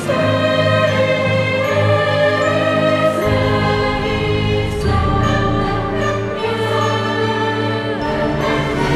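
Orchestral film-theme music with choir-like voices. It moves in long held chords that change every two to three seconds.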